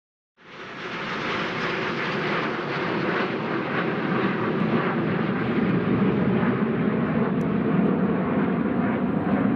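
Steam locomotive 46100 Royal Scot working a train, a dense steady roar of exhaust and running noise that fades in about half a second in and grows somewhat louder over the next few seconds.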